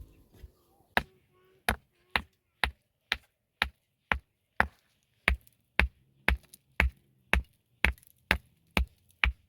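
A steady series of sharp chopping strikes, about two a second.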